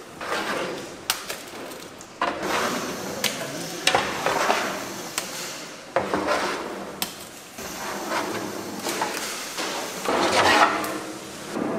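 Thick red chili kimchi seasoning paste scraped with a metal scraper along a stainless steel tray and slopping into a plastic tub: irregular wet scraping with sharp metal clicks and knocks now and then.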